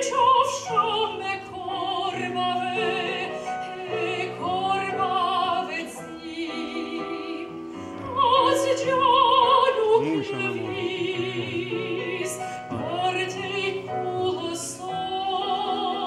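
Soprano singing a slow classical-style song in operatic voice, holding long notes with wide vibrato, over piano accompaniment.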